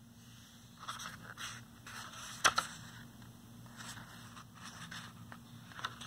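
Paper pages of a hardcover picture book being handled and turned: a run of light scrapes and crackles, the sharpest about two and a half seconds in, with a few smaller ones toward the end.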